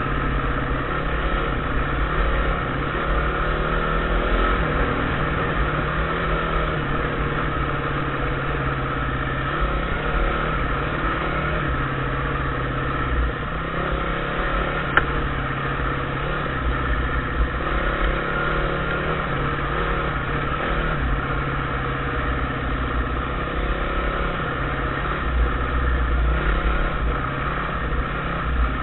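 Dirt bike engine running steadily under way along a rough track, with wind buffeting the microphone. A single sharp click about halfway through.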